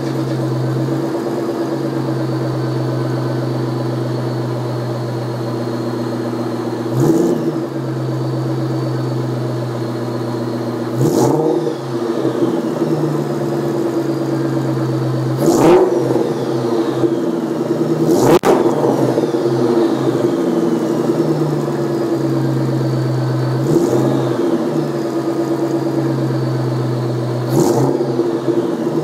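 Exhaust of a 2003 Mustang SVT Cobra's supercharged 4.6-litre V8 through a stainless Magnaflow cat-back, idling steadily. It is broken by several short throttle blips that briefly swell the exhaust note.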